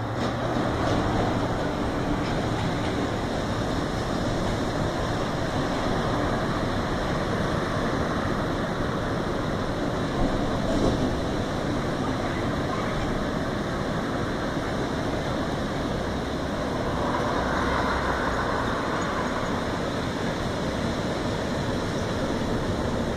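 Steady wash of breaking ocean surf mixed with road traffic passing on the beachfront road, with a short louder bump about halfway and the noise swelling briefly later on.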